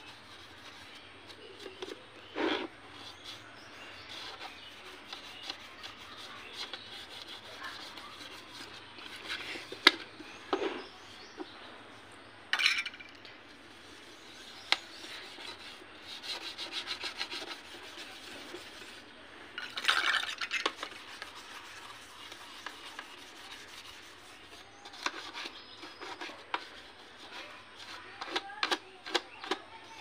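Toothbrush scrubbing and a thin metal tool scraping around the blades and plastic body of a mixer grinder jar, cleaning it with Vim powder paste. Irregular rubbing and scraping strokes, with quick runs of short strokes and a few sharper scrapes and clicks.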